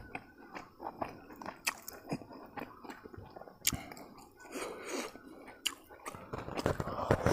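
A person chewing food with the mouth close to the microphone: irregular wet smacks, clicks and light crunches.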